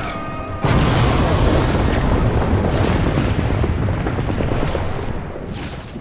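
A sudden loud boom about a second in, followed by a long deep rumble that slowly fades, with a few sharp cracks in it.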